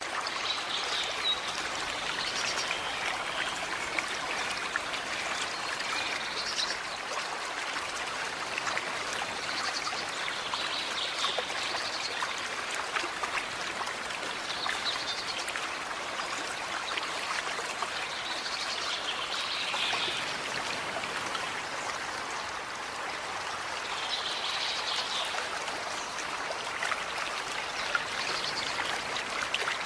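Small forest creek running and trickling steadily, with birds calling now and then over the water.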